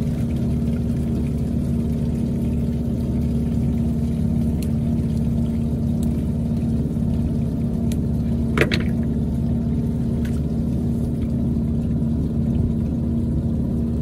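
Boat engine running steadily, a constant drone with a water-like rush, and one sharp click a little past halfway.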